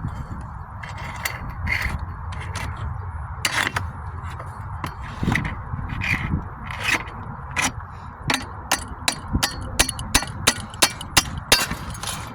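A shingle ripper worked under a wood roof shake to free a stuck fastener: scraping and irregular knocks, then a run of sharp strikes about two a second in the last few seconds.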